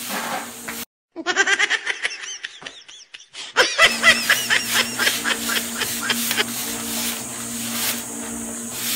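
Rapid, high-pitched laughter in quick repeated bursts, broken by a short cut about a second in, over a steady low hum.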